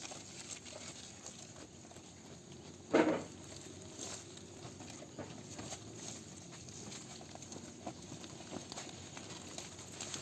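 A goat bleats once, briefly and loudly, about three seconds in, against faint scattered shuffling and clicking.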